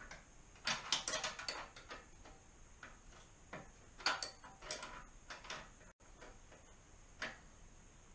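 Metal hand tools clicking and clinking against each other and against exhaust hardware while a bolt is worked on, in two quick flurries of clicks with a few single clicks between.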